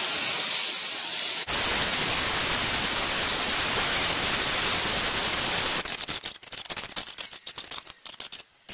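Hand-held gas torch flame hissing steadily while heating a sand-packed exhaust pipe for bending. About six seconds in, the hiss breaks up into rapid choppy bursts, and it drops away just before the end.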